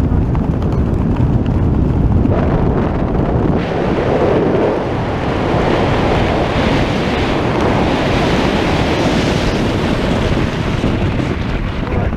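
Loud, steady roar of rushing air buffeting the microphone during a tandem parachute descent.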